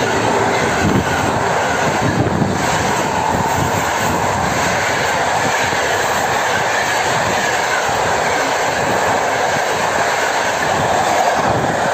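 Passenger train hauled by an EP09 electric locomotive running through the station at speed close by. A long rake of coaches gives a steady loud rush of wheels on the rails.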